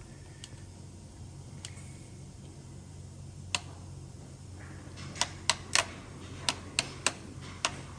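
Sharp plastic clicks from a Steelcase Gesture chair's adjustment-knob mechanism as its cable is worked back into place: a few scattered clicks, then a quicker run of clicks in the second half, over a low steady hum.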